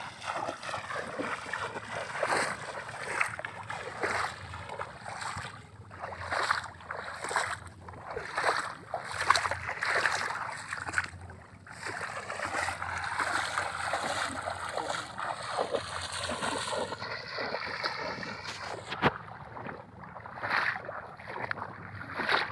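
Legs wading through shin-deep water in a flooded rice paddy, each stride splashing and sloshing in an uneven rhythm of roughly one splash a second.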